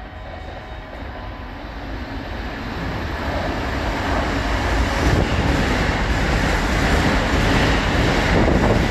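Keikyu 2100-series electric train running through the station at speed without stopping. Its running noise grows steadily louder over the first half as it approaches, then stays loud as the cars rush past the platform.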